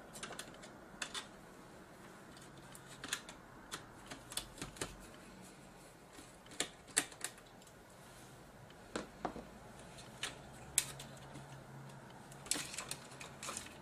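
Irregular small clicks and light taps of fingers working a speaker cable out of its clips and routing channel inside an opened Dell Inspiron 6400 laptop.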